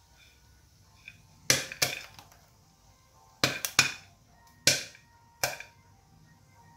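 The last few popcorn kernels popping in an aluminium pressure cooker, about seven sharp, irregular pops: the batch is nearly done.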